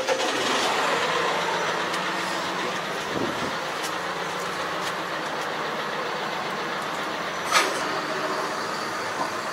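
Large farm tractor's diesel engine running steadily just after starting up, with one sharp click about three-quarters of the way through.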